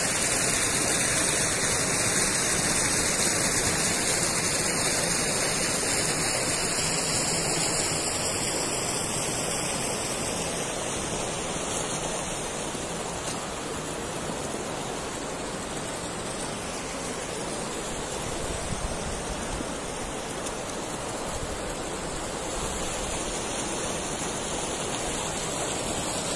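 Water rushing into the stone-walled basin of an old masonry water dam: a steady, even rush that eases a little quieter after the first few seconds.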